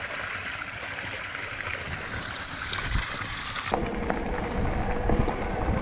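A steady rushing hiss, then about two-thirds of the way in an abrupt change to an electric mountain bike being ridden on a dirt trail: a steady motor whine over tyre rumble, with clicks and rattles from the bike.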